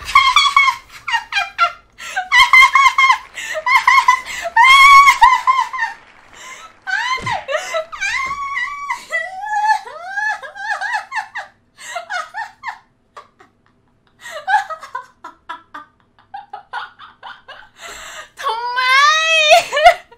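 A young woman laughing in long, high-pitched fits, breaking into squeals and a long rising-and-falling wail near the end.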